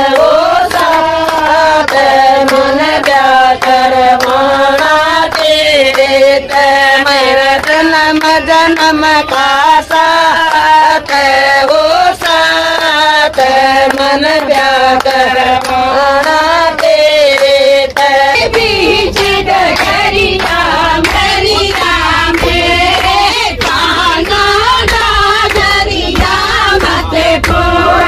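A group of women singing a devotional bhajan together in unison, clapping along in a steady rhythm. About two-thirds of the way in, the sound switches to another group's singing and clapping, with a low rumble underneath.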